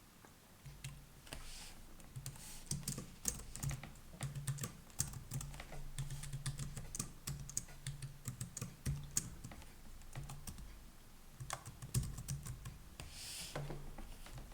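Computer keyboard being typed on: irregular runs of quick keystroke clicks, with a faint low hum beneath.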